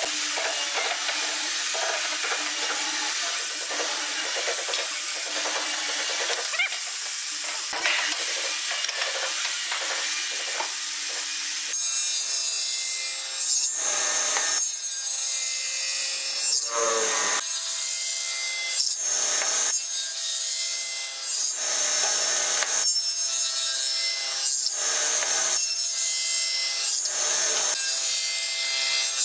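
A hollow-chisel mortiser boring into pine, then a running table saw making a series of short cuts through wood on end, one about every two to three seconds, cutting a tenon.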